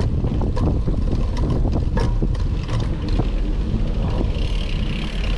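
Mountain bike riding over a rough dirt trail: a steady low rumble with many short rattles, clicks and knocks from the bike.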